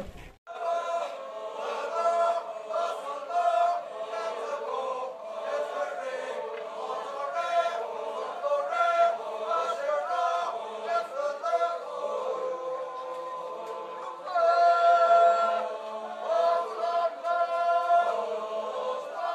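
A group of voices chanting together in a traditional Poumai Naga festival chant. It goes on throughout and swells louder for a couple of seconds in the latter part.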